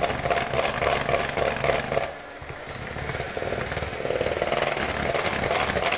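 Electric mixer running at high speed, its beaters whipping a thick, still-lumpy cream cheese frosting with a steady motor whir and light clatter against the bowl. The sound dips about two seconds in, then picks back up.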